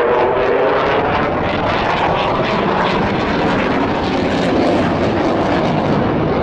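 Loud, steady jet roar of a single-engine F-16 Fighting Falcon fighter in flight.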